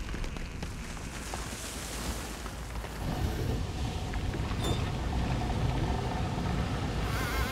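Low, steady rumble of a vehicle on the move, mixed with wind noise, growing louder about three seconds in.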